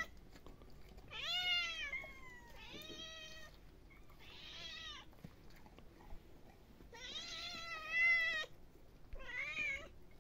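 Hungry cats meowing for food, five meows of about a second each, the longest and loudest about seven seconds in.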